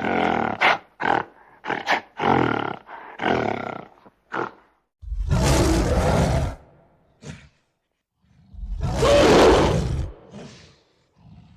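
Animal roar sound effects: a run of short pitched calls, then two long, deep roars about three and a half seconds apart.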